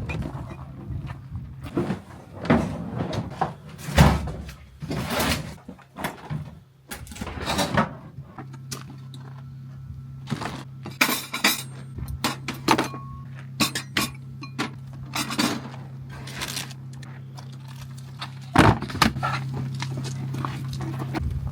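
Camping gear being packed up: repeated knocks, thuds and clinks of things being handled and set down. From about eight seconds in, a steady low hum runs underneath.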